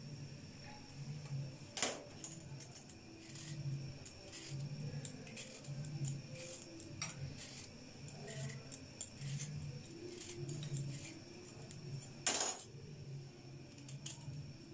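Hand vegetable peeler scraping the skin off a sweet potato in short strokes, about one a second, with a few sharp clicks, two of them louder, about two seconds in and near the end.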